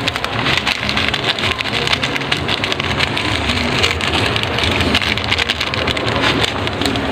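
Pot of tinola, a chicken soup, at a rolling boil: a steady bubbling with dense fine crackling and popping.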